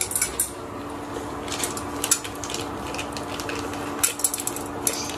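Spoon clinking and scraping in a metal pot as popcorn kernels are stirred, with a handful of sharp clicks, over a steady hum from the induction cooktop that is heating the pot.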